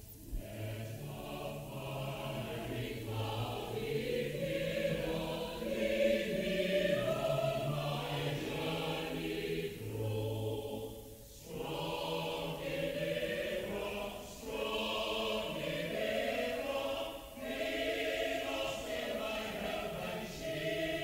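A choir singing long held notes, with a brief pause about eleven seconds in.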